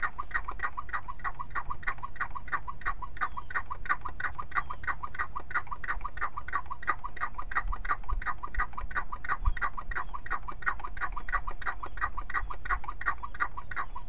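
Hand-squeezed vacuum pump from a brake bleeder kit being worked to pull vacuum on a boat outdrive for a seal test, giving a fast, even run of short squeaks, about four or five a second.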